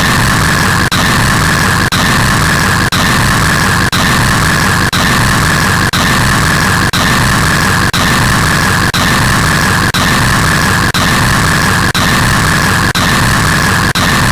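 Very loud, harsh static-like noise, thickest in a high band and a low rumble, looping about once a second with a brief dropout at each repeat.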